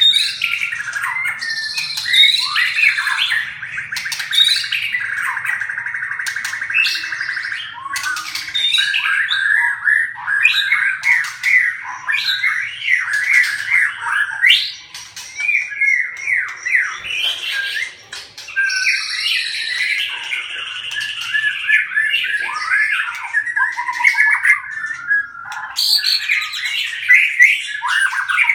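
Birds squawking and chirping rapidly and almost without pause, with many sharp clicks among the calls: birds fighting each other.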